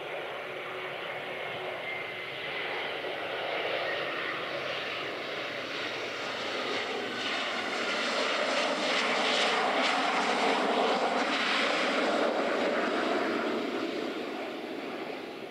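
A Boeing 737-400 airliner's CFM56 jet engines running during the landing roll-out just after touchdown. It is a steady roar that grows louder past the middle and fades near the end.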